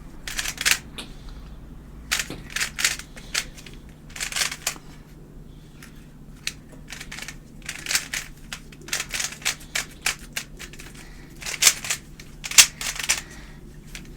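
A crystal-covered Rubik's cube being turned quickly as it is solved, its layers clicking and clacking in quick irregular bursts with short pauses between them.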